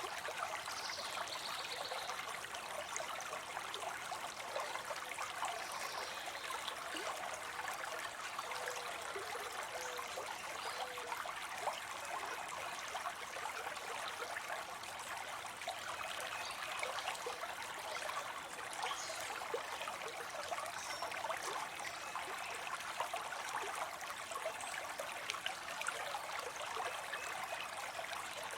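Water falling and spilling into a pond: a steady trickling splash.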